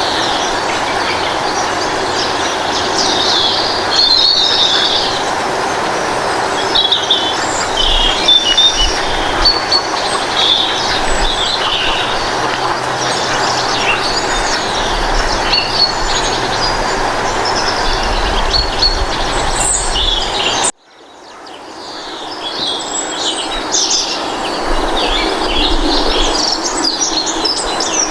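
Many small birds chirping and singing over a steady background noise, from a nature ambience track. The sound cuts out abruptly about three-quarters of the way through and fades back in.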